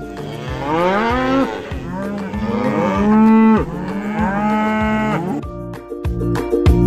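Cow mooing: a few long moos, each rising in pitch, over soft background music that takes over alone near the end.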